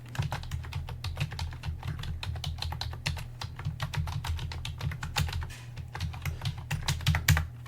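Computer keyboard being typed on rapidly, a dense run of clicking keystrokes as a password is entered, over a steady low hum.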